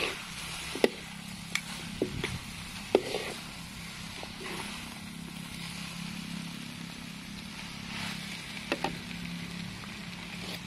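Yellow noodles, pork liver and bok choy sizzling in a hot wok as they are stir-fried, with sharp clicks and scrapes of the metal spatula against the pan several times, mostly in the first few seconds and again near the end.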